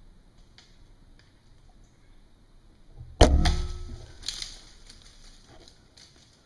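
A single bow shot about three seconds in: a sharp crack from the string's release, dying away over about a second with a faint ringing, from a shot that the hunter believes struck his tree stand. A smaller knock follows about a second later.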